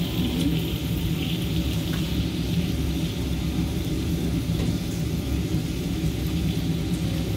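Thick block of Kobe beef sizzling steadily on a hot steel teppanyaki griddle, its fat and juices bubbling at the base, over a steady low rumble.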